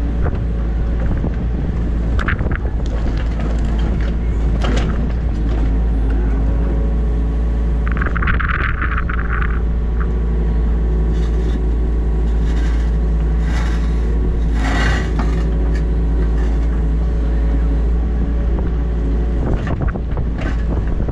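New Holland Kobelco E50.2 mini excavator's diesel engine running steadily while the boom and upper body are swung, heard from the cab. There is a short hiss about eight seconds in and a few knocks along the way.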